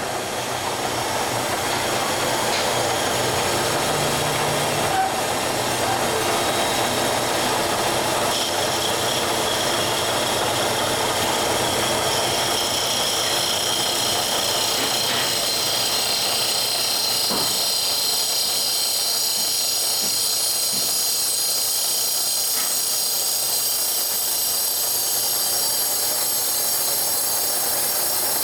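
Steady mechanical noise of factory machinery running, an even din with an occasional faint click.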